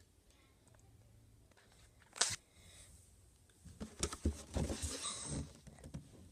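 Cardboard Lego set box being picked up and handled on a carpet: irregular knocks and rustling from about three and a half seconds in, after a single brief sharp scrape about two seconds in.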